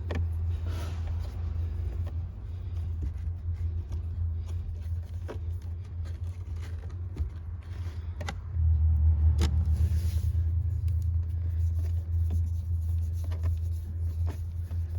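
A steady low rumble that gets louder about eight and a half seconds in, with scattered light clicks and taps of the Phillips screws being driven back into the cabin air filter housing.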